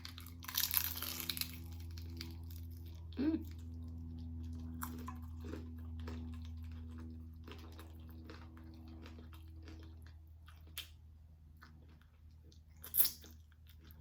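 Close-miked chewing and biting of a taco, with wet mouth clicks and a louder bite about a second in and another near the end. A steady low hum runs underneath.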